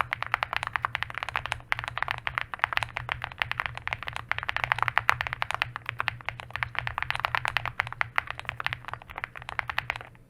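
Fast, continuous typing on an Owlab Spring custom mechanical keyboard with an FR4 plate, foam-filled case, Tecsee Singularity linear switches and stainless steel alpha keycaps: a dense stream of crisp key clacks with no pauses.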